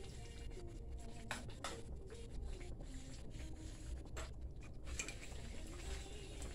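Faint scraping and a few light clicks of a spoon against a stainless steel pan of stewing fish.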